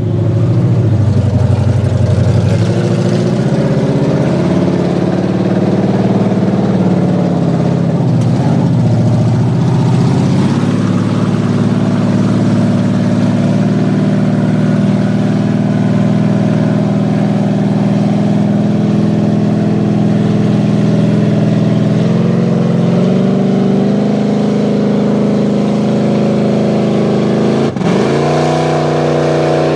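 Big lifted GMC mud truck's engine working under load in a mud pit, the revs rising and falling several times, then holding steady before climbing again. Near the end the revs drop sharply for a moment, then pick back up.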